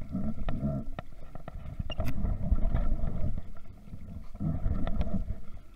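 Close handling noise on a body-worn camera's microphone: a low rumble with scattered clicks and knocks as hands and a spinning rod and reel work right against it.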